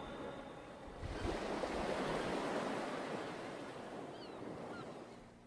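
Ocean wave breaking and washing up the shore, swelling about a second in and slowly receding. A few faint high bird calls near the end.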